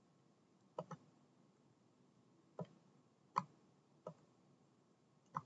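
A computer mouse clicking: a few faint, separate clicks spaced irregularly about a second apart.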